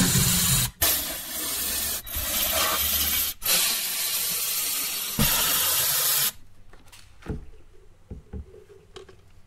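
Power ratchet undoing the hose clamp and bolts of a Toyota LandCruiser 200 series air intake pipe, running in about five back-to-back bursts of a second or so each. It stops about six seconds in, leaving a few faint clicks.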